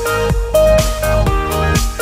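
Electronic dance music with a steady beat and synth melody.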